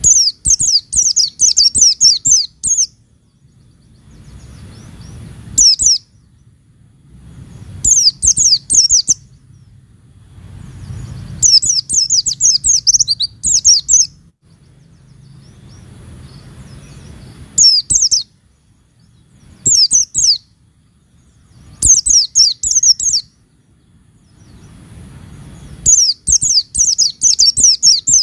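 White-eye (pleci) song: about eight bouts of rapid, high, twittering chirps, each a quick run of short falling notes lasting one to three seconds, with brief pauses between bouts.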